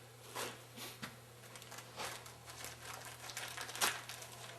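Packaging crinkling in short, irregular handling bursts, with a sharper crackle near the end, as a new pump seal (the top-cap wiper) is unwrapped from its seal kit.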